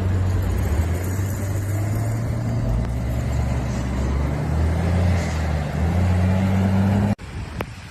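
Engine of a large vehicle running with a steady low hum over a noisy background. The hum rises in pitch near the end, and the sound cuts off abruptly about seven seconds in.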